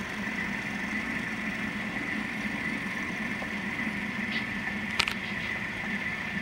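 Model train running on the layout: a steady motor hum and rolling noise with two even tones, one low and one high, and a single sharp click about five seconds in.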